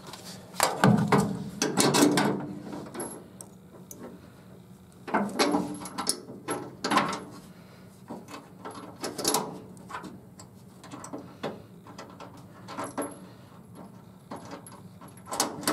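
Metal clinks and clicks of nuts, bolts and hand tools being handled and worked, coming in several short bursts with pauses between.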